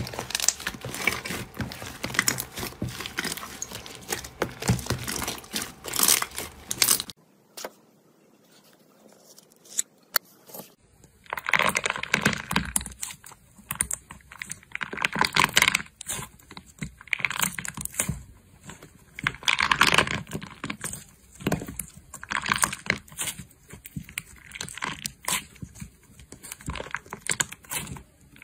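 Slime being handled, with crackly tearing and crinkling clicks. They run densely for about seven seconds, then break off into a short near-quiet pause, and come back as repeated swells of squishing and crackling every second or two.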